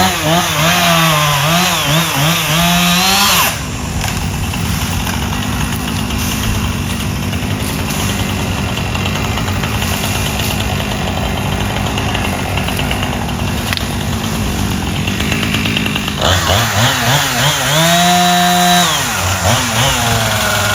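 Chainsaw running at full throttle for the first few seconds, then dropping to a lower, steadier note. It revs up again a couple of seconds before the end, rising and falling in pitch, then settles back down.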